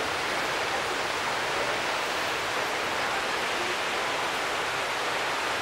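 Steady wash of ocean surf breaking on the sandbar and running up the beach, an even hiss without a break.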